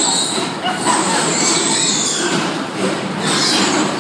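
Electric bumper cars running on the ride floor: a loud, steady mechanical din with high squealing tones that come and go, and voices under it.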